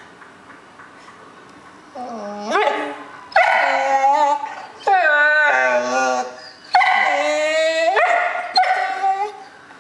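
Dog howling in about five long, wavering whining calls that begin about two seconds in, a protest at a treat held in front of its nose.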